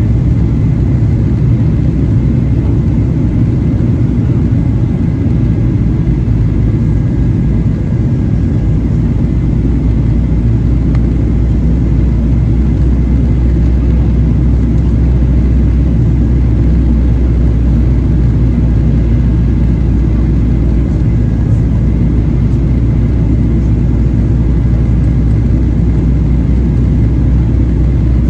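Steady cabin noise inside a Boeing 737-800 in flight: the low drone of its CFM56-7B turbofan engines and the rumble of airflow over the fuselage, heard from a passenger seat, with no change in power.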